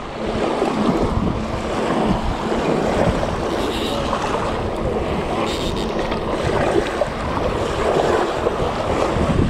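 Wind buffeting the microphone, with small waves washing on the shore.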